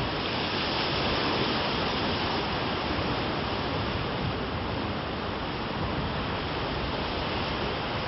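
Steady rush of surf washing on a sandy beach, an even hiss with no breaks.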